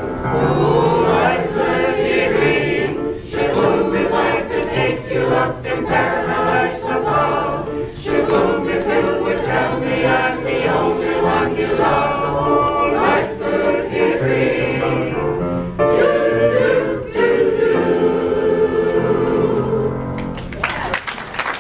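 Mixed adult choir singing a song in parts, men's and women's voices together. The song ends about 20 seconds in and applause starts near the end.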